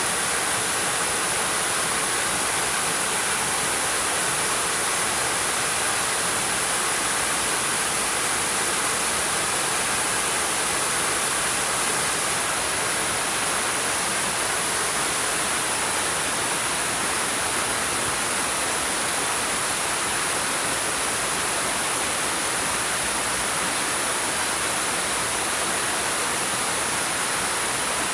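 Water falling over rocks, a steady, unbroken rush with a hissing top.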